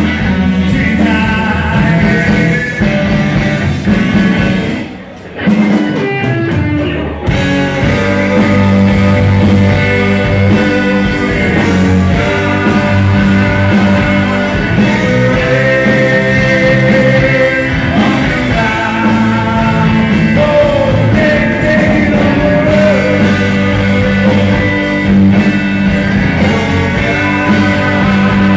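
Live rock band playing: a singer over electric guitars, saxophone and drums. The music drops out briefly about five seconds in, then the band comes back in full.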